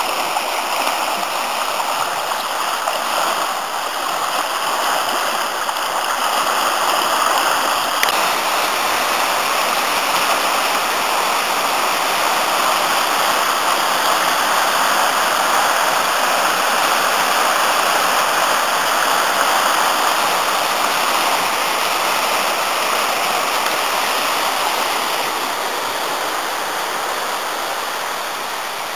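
Afon Artro river in spate after heavy rain, fast water rushing over rapids in a steady roar of noise, easing a little near the end.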